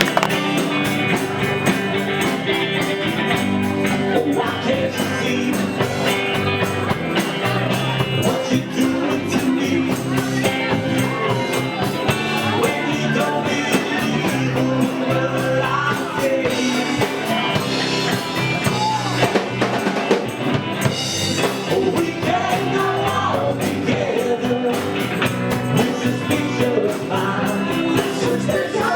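Live bar band playing a song, with a drum kit keeping a steady beat.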